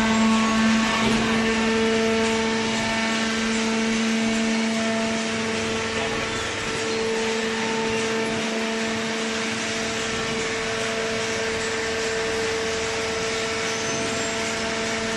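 Hydraulic waste paper baler running: its motor and hydraulic pump give a steady hum over a noisy mechanical background.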